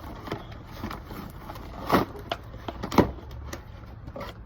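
A cardboard toy box and its contents being handled and unpacked: scattered knocks and taps, with the two loudest about a second apart near the middle, over a low steady rumble.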